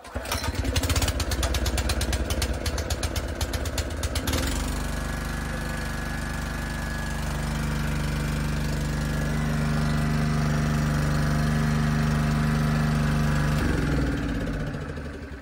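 Honda GX200 single-cylinder four-stroke engine on a generator, pull-started on choke and catching at once, running loud and choppy for about four seconds before settling into steady running. Near the end it is switched off and winds down, its pitch falling.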